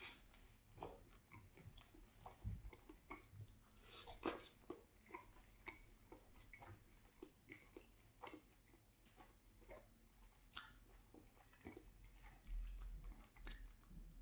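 Faint close-up chewing of a chicken and cheese sub sandwich: irregular short mouth clicks and smacks.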